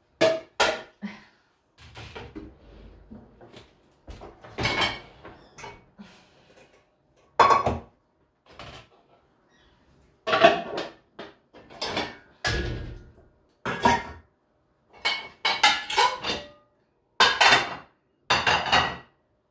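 Ceramic plates and cups clinking and knocking as they are handled and set down: a series of separate clatters, some with a brief ring.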